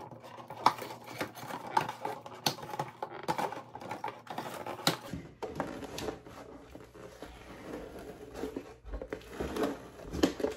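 Hands handling small parts and packaging: irregular crinkling with light clicks and taps. About halfway through, a low steady hum comes in under it.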